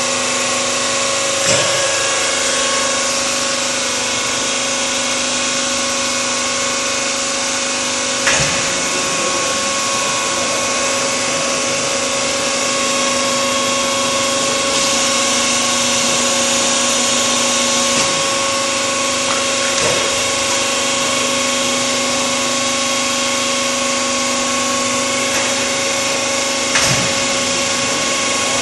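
Concrete block making line running on test: electric motors and drive machinery give a steady whine of several tones over a mechanical hiss, with a few scattered metal clunks.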